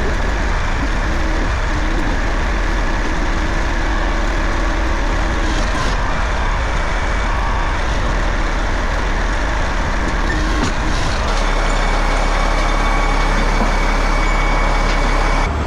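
A large engine running steadily and loudly, with a deep low hum that shifts slightly about two-thirds of the way through.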